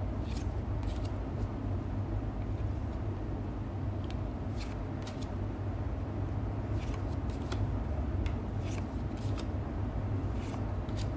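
Magic: The Gathering cards sliding against each other as they are moved through the stack one by one: a dozen or so short, soft swishes at uneven intervals, over a steady low background rumble.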